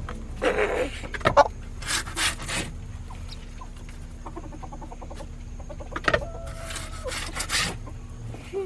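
Chickens clucking, with a few louder squawks among them.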